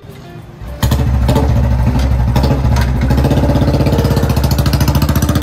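Royal Enfield single-cylinder motorcycle engine coming in suddenly about a second in, then running loudly and steadily as the bike moves off.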